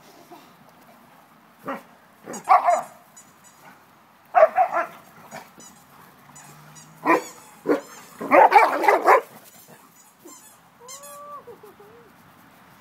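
Dogs barking in short bursts during rough play, loudest about eight to nine seconds in, followed by a short whine near the end.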